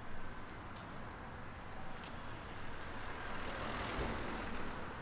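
Street traffic noise, with a passing vehicle loudest about four seconds in.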